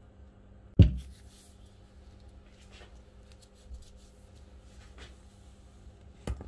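Light handling sounds of cheese pieces being scattered by hand onto a pizza in a metal pan, with a sharp knock about a second in and a second, smaller knock near the end.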